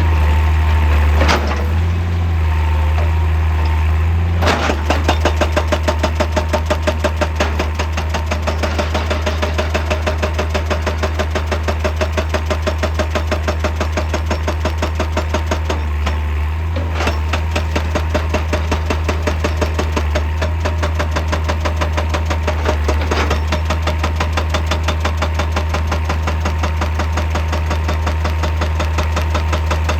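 Excavator's hydraulic breaker hammering rock in a fast, even rhythm of several blows a second, starting a few seconds in, over the steady running of the excavator's engine. A few single knocks come before the hammering starts.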